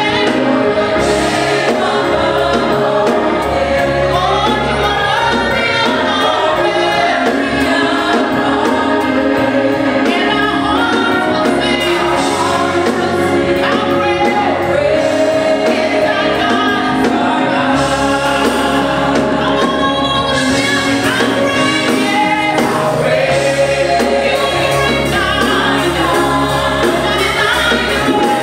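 Gospel praise-and-worship singing: a group of voices singing together with instrumental backing, steady throughout.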